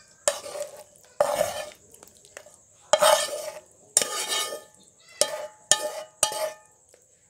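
Serving spoon scraping and knocking against the cooking pan in about seven short strokes while cooked vegetables are ladled out to be served.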